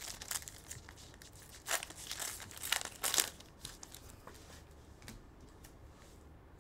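Foil wrapper of a trading-card pack crinkling as it is torn open, in several short crackly bursts over the first three seconds or so, then quieter handling of the cards.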